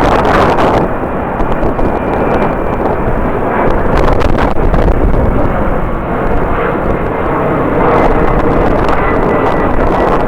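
Jet airliner engines running loud and steady, with a faint high whine, mixed with strong wind buffeting the microphone.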